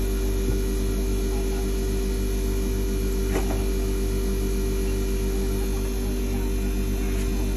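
Ice machine running with a steady electrical hum made of several low steady tones, with a faint click a little over three seconds in.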